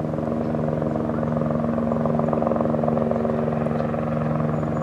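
Aérospatiale AS 350 B Ecureuil helicopter in flight, carrying a slung load on a long line. The fast, even beat of its main rotor runs over the steady tone of its turbine engine.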